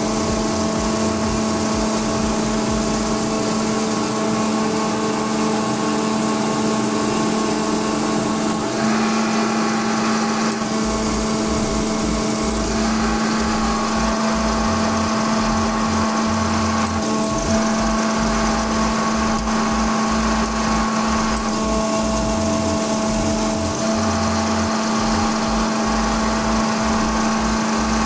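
Airman screw air compressor running with a steady hum and several constant tones. Partway through it switches from loaded to unloaded running as the air pressure reaches its set limit.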